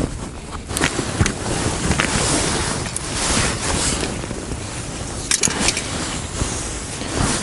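Rustling of a jacket and handling noise as fishing line is pulled hand over hand out of an ice hole, a rushing noise that swells and fades with the arm movements, with a few light clicks.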